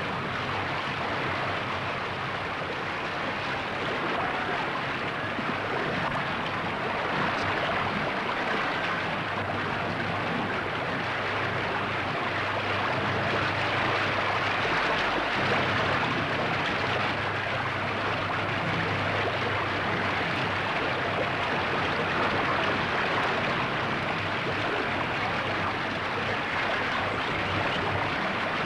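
Steady rushing of fast-flowing water, one unbroken noise at an even level.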